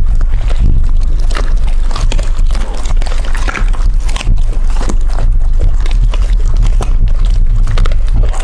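Several dogs and a kitten chewing and gnawing hard chew treats close to a microphone: a dense, continuous run of crunching and biting clicks over a low rumble.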